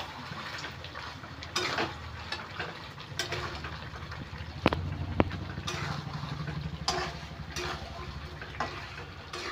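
Metal spatula stirring and scraping chicken curry in a metal pan on a gas stove, scraping every second or so, with two sharp clinks of spatula on pan about halfway through, over a steady low hum.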